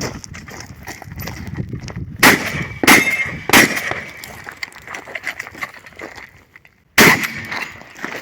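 Shots from a Benelli SuperNova pump-action shotgun: three quick shots a little over half a second apart, about two seconds in, then smaller clicks and clatter of the action being worked, and another shot near the end, each shot followed by a brief ringing.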